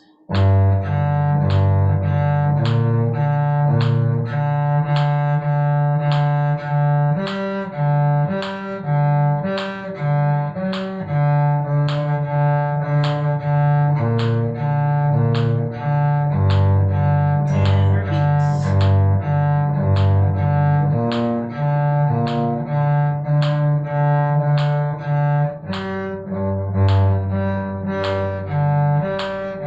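Cello bowing a G minor arpeggio as a string-crossing exercise, alternating each arpeggio note with the open D string in steady, even strokes of about two notes a second.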